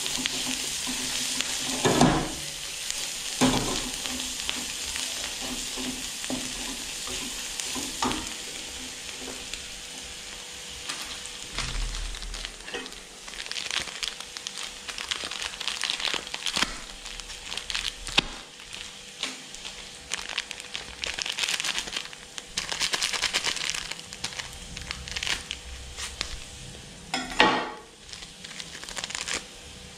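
Food sizzling in a hot wok as it is stir-fried, the sizzle rising and falling as it is stirred. A few louder knocks come through, the loudest about two seconds in and near the end.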